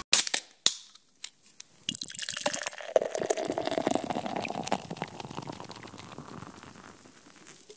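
A few sharp clicks, then ginger beer pouring into a glass from about two seconds in, with crackling fizz that slowly dies down toward the end.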